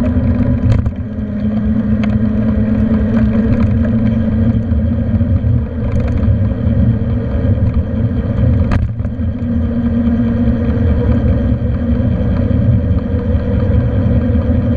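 Wind rushing and buffeting over a handlebar-mounted camera's microphone on a moving bicycle, a loud, steady low rumble with a droning hum underneath. A few sharp clicks come through, about a second in, near the middle and a little later.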